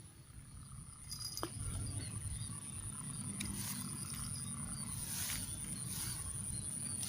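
Steady high-pitched insect drone, over a low rumble, with a few short rustling noises in the second half.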